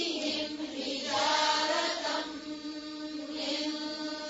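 A woman's voice chanting Quranic recitation in the tajweed style, holding long drawn-out notes with slow glides in pitch and short breaks between them.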